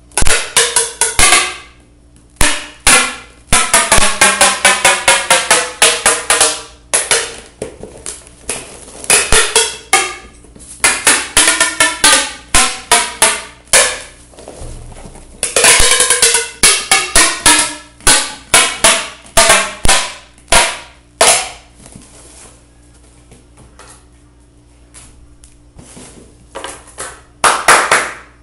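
Adhesive packing tape being pulled off the roll onto a cardboard box: a loud, high-pitched screech in quick repeated pulls, the pitch sliding up or down within each run, with several pauses between runs of pulls.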